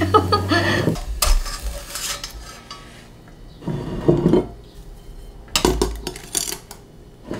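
Metal clanks and clinks from a stainless steamer pot and a utensil knocking against it, several separate strikes with the loudest cluster about six seconds in.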